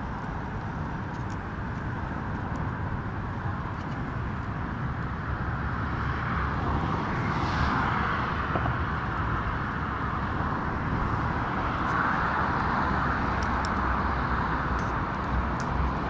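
Steady road traffic noise, swelling as vehicles pass about seven seconds in and again about twelve seconds in, with a few faint clicks near the end.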